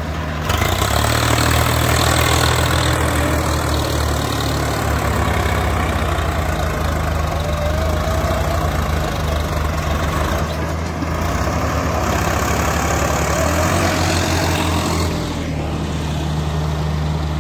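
Diesel tractor engines running hard under heavy load as a Swaraj 855 FE and a Kubota 4501 pull against each other in a tug-of-war. The engine note grows louder about half a second in, holds steady, and eases slightly near the end.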